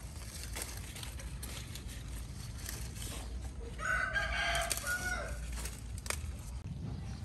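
A rooster crows once about four seconds in, a call of about a second and a half that ends on a falling note. Around it, a few soft snaps and rustles come from leafy greens being picked by hand.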